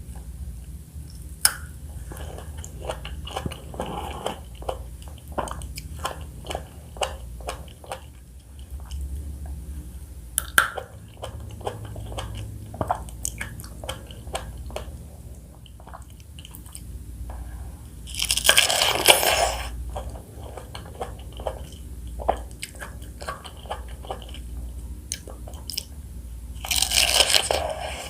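Close-miked mouth sounds of someone eating fresh fruit: wet chewing with many small smacking clicks, and two louder crunching sounds about a second long, one about two-thirds of the way in and one near the end.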